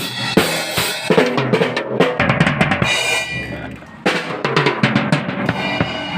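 Music with a busy drum kit (kick, snare and rimshots) over pitched instruments, played loud through PA speakers during a sound check. It breaks off briefly about four seconds in, then picks up again.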